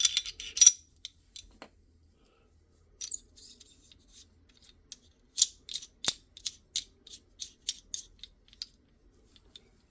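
Small metal pistol parts clinking and clicking as they are handled and fitted by hand: a few loud clinks at the start, then a run of light, fairly even clicks at about three a second, from about halfway in until near the end.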